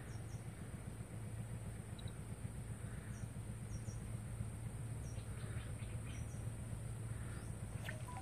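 Outdoor riverside ambience: a steady high-pitched insect drone with a few faint, short bird chirps scattered through it, over a low steady hum.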